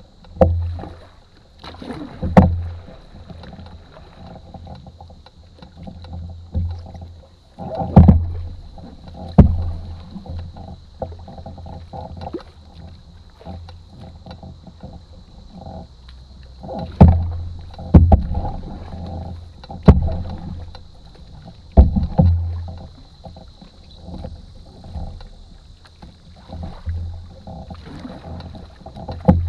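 Canoe being paddled: paddle strokes with sharp knocks and low thuds against the hull every second or few, over a rumble of water along the boat. A faint steady high-pitched tone runs under it.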